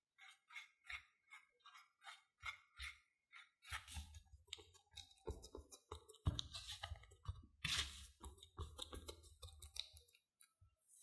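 Silicone spatula stirring a crumbly mix of mashed potato and cornstarch in a ceramic bowl: quick, soft scraping strokes. From about four seconds in, the strokes come thicker and louder, with low thuds as the spatula presses and squashes the mixture into a dough.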